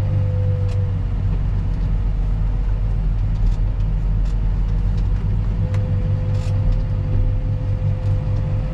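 Engine running steadily: a constant low rumble with a steady whine over it, and a few faint clicks.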